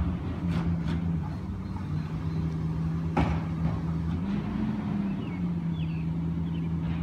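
Recycling truck's engine running steadily down the street, its hum rising in pitch briefly about four seconds in and then settling. A single sharp knock sounds about three seconds in.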